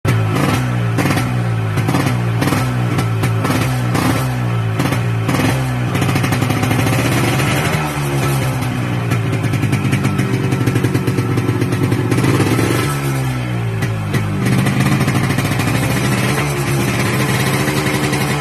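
Yamaha RX 100's two-stroke single-cylinder engine being revved: the throttle is blipped in quick repeated surges for about six seconds, then held higher with the revs rising and easing.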